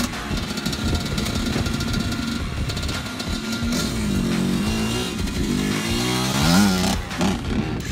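Dirt bike engine revving, its pitch rising and falling several times in the second half and climbing to a peak near the end, with background music under it.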